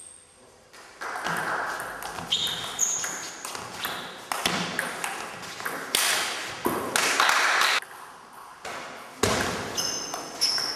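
Table tennis rally: the ball clicks in quick succession off the bats and the table, each click echoing in the hall, with a few short high squeaks between the strokes.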